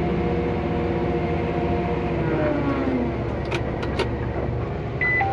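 John Deere tractor engine running steadily under load while planting, heard from inside the cab. A few sharp clicks come about three and a half to four seconds in, and a short high beep near the end.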